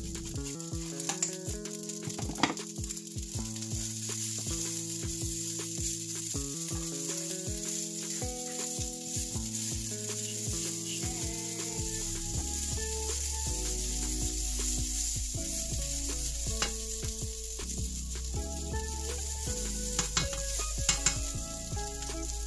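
Leftover rice frying in garlic oil in a pan, sizzling steadily as it is stirred and tossed with a wooden spatula, with a few sharp scrapes near the start and near the end.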